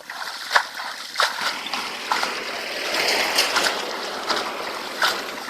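Water splashing: a run of irregular sharp splashes over continuous sloshing and rushing water, busiest around the middle.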